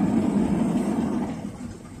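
Automatic gantry car wash machine running with a steady low drone, heard from inside the car's cabin; it winds down and fades about a second and a half in.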